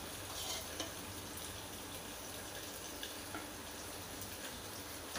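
A steel spoon scooping thick set curd from a steel pot and laying it on a straining cloth: soft wet scrapes and plops, with a few light clicks of the spoon against the pot, over a steady faint hiss.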